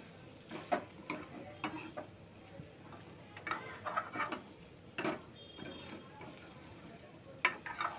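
A spoon stirring and scraping thick liver curry around a pan in irregular knocks and scrapes, with a faint sizzle as the masala fries down.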